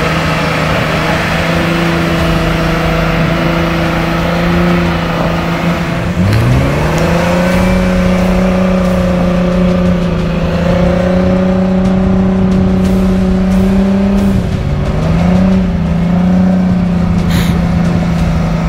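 Jeep Wrangler's engine working under load as it pushes through deep snow, holding a steady note. The note drops sharply about six seconds in and climbs back higher, then dips briefly and recovers again later.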